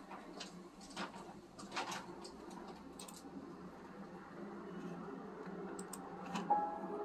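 Thin paintbrush dabbing and tapping gouache onto sketchbook paper, a scattering of soft irregular ticks over a low steady hum. About six seconds in come a few quick sharp computer mouse clicks, and piano music begins just before the end.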